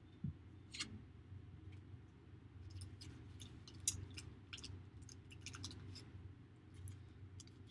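Faint scattered clicks and ticks of football trading cards being handled and flipped over in the fingers, over a low steady hum.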